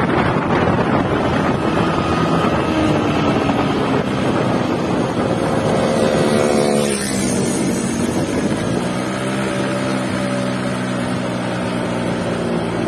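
Yamaha RX-King 2007's two-stroke single-cylinder engine running under way through its stock catalytic-converter muffler, with wind buffeting the microphone. About six seconds in the revs fall away, then the engine runs steadily at lower revs.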